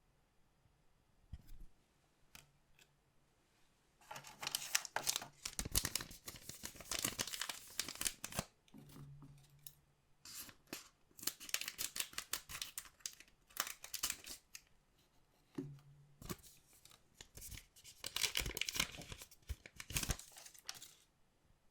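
Collectible card-pack wrappers being torn open and crinkled, in three long bouts of dense crackling rustle, with a few soft clicks before the first.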